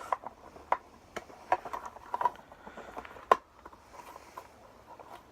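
Scattered sharp clicks and taps from the clips of a Mercedes W212 wing-mirror LED turn-signal unit being worked loose from its housing, with one louder click a little after three seconds in.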